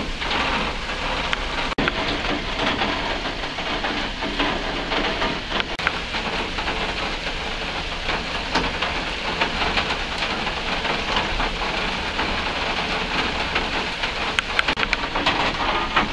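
Steady rain falling, a dense hiss dotted with many fine drop ticks, broken by a brief dropout about two seconds in and with more distinct drips near the end.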